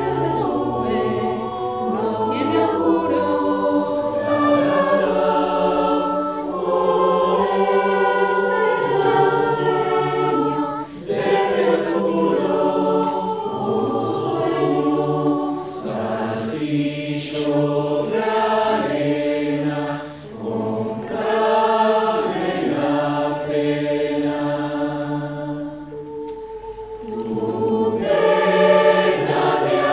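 Mixed-voice choir of men and women singing in parts. It is a virtual choir: each singer was recorded separately at home and the takes were mixed into one track. The chords are long and held, with short breaks about 11 and 20 seconds in and a softer passage around 26 seconds.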